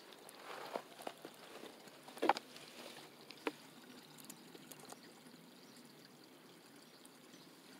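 Faint steady trickle of water at a small backyard pond, with a few light splashes and taps during the first three and a half seconds, the loudest a little after two seconds in.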